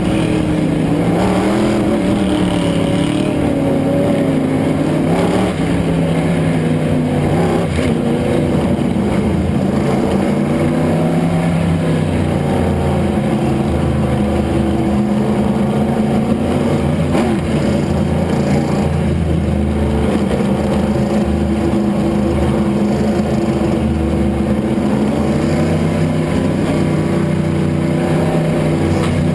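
Race car engine running hard at speed, its note dipping and climbing again several times.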